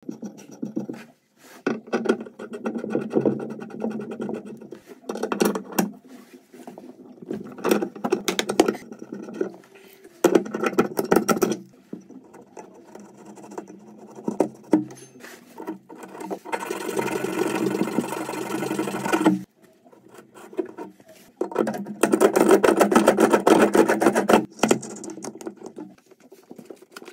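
Rapid scraping and rubbing from hand tools working on a copper pipe stub-out where an old angle stop valve is being removed, coming in bursts several seconds long with short pauses between.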